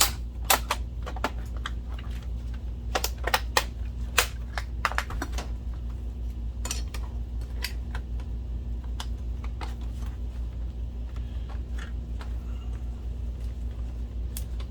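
Irregular sharp clicks and taps of plastic projector case parts being squeezed and fitted together, thickest in the first five seconds and scattered after, over a steady low hum.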